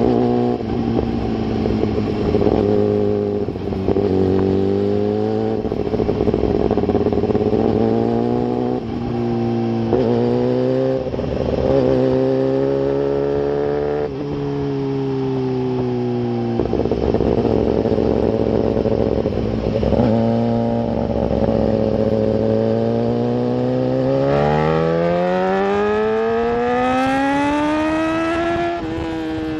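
Sport motorcycle engine heard from on board, revving up and down through a series of corners with several abrupt gear changes. Near the end it climbs steadily in pitch under hard acceleration.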